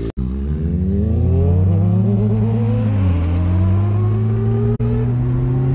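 Engine accelerating hard through the gears, heard from inside a car: its pitch climbs steadily, drops with an upshift about three seconds in, then climbs again.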